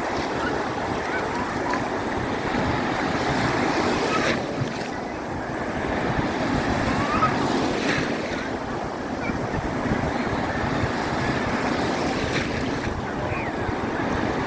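Strong sea waves rushing and surging in a continuous noise that swells and eases, with wind on the microphone.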